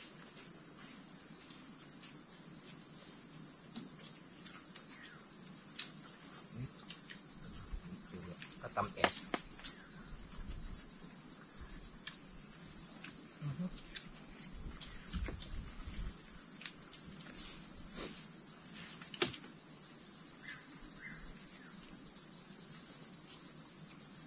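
Steady, loud, high-pitched insect chorus, buzzing with a rapid pulse, with a few light clicks scattered through it.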